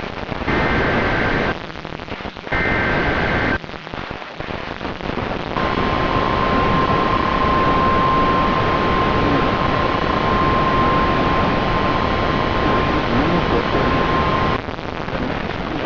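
NOAA Weather Radio sounding an Emergency Alert System alert for a severe thunderstorm warning. First come the last two short two-tone SAME data bursts, each about a second long with a second's gap between them. A few seconds later the long steady warning alarm tone starts and cuts off about nine seconds later, with a steady hiss underneath throughout.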